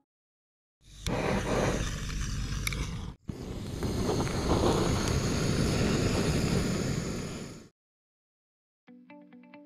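Handheld butane blowtorch flame running with a steady hiss and rumble, played onto charcoal in a portable grill to light it. It starts about a second in, breaks off for a moment about three seconds in, and cuts off suddenly near the end.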